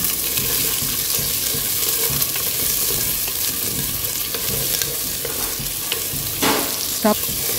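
Chopped onions and carrots sizzling in hot oil in a clay pot, stirred with a wooden spatula that scrapes against the pot, with a couple of louder scrapes near the end.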